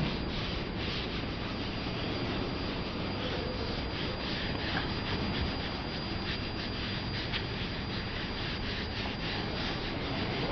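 A hand-held pad scrubbing back and forth over a crystal-effect painted panel, a steady scratchy rubbing made of many short strokes.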